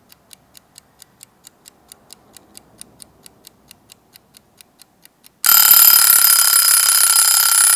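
A clock ticking about four times a second, then about five and a half seconds in an alarm-clock bell starts ringing loudly and steadily: a countdown timer running out on a quiz question.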